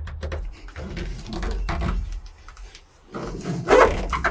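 Hands pressing and rubbing foil-backed butyl sound-deadening mat down onto a truck's sheet-metal floor: rubbing and crinkling with dull knocks, louder near the end.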